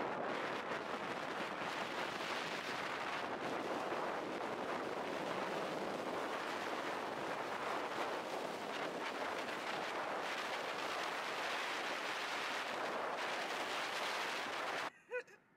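Steady rush of wind and road noise on the microphone of a moving car at speed, with no engine note standing out. It cuts off abruptly near the end.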